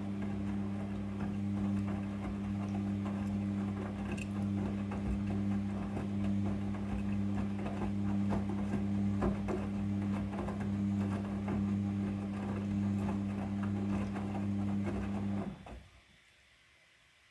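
Midea front-loading washing machine running with a steady hum and scattered light clicks. The hum cuts off suddenly about fifteen seconds in.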